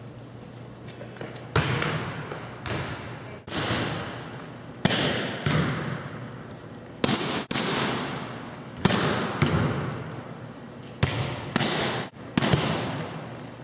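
Volleyballs being struck in a gymnasium: about a dozen sharp smacks of hands and forearms on the ball, often in pairs about half a second apart, each ringing on in the hall's echo.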